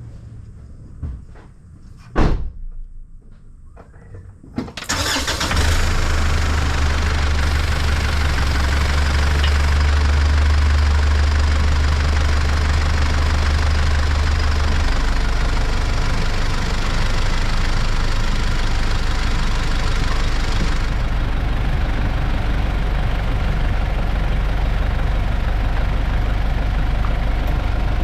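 A loud thump about two seconds in, then a Mitsubishi Pajero's engine starting at about five seconds and idling steadily. About fifteen seconds in, its idle hum drops to a lower pitch.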